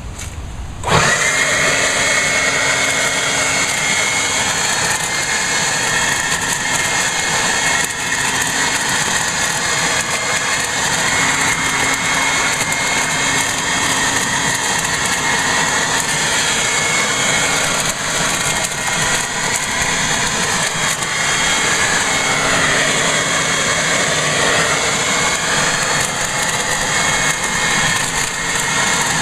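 A Toro Super Blower/Vac, a corded electric blower set up as a leaf vacuum, switches on about a second in. Its motor winds up quickly to a steady high whine over a loud rush of air and keeps running.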